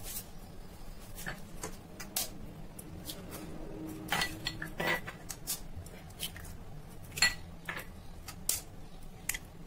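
Eggs being cracked and dropped one after another into a stainless steel mixer-grinder jar: scattered sharp taps and clinks of shell on steel.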